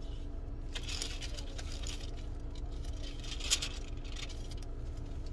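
Soft rustling of paper pages being turned, in several short bursts, over a steady low hum inside a car.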